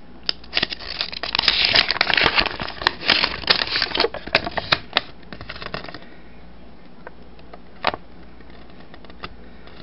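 Paper instruction leaflet being unfolded and handled, crinkling and rustling for about five seconds, then a few light ticks and one sharp crackle near the end.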